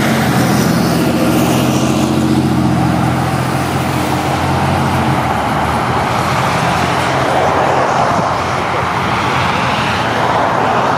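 Road vehicle noise: a low, steady engine hum that fades out about five seconds in, leaving a steady rushing of traffic.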